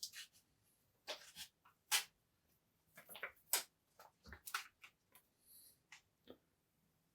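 Trading cards and their pack wrapper being handled: a string of short, irregular rustles and small clicks.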